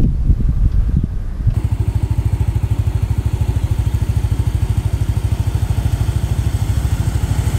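Wind buffeting the microphone, then, from about a second and a half in, a motorbike engine running steadily with an even, rapid pulse.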